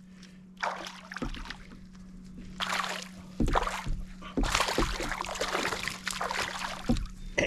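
Hooked bass splashing and thrashing at the surface in bursts while being reeled in, with a few dull knocks on the canoe, over a steady low hum.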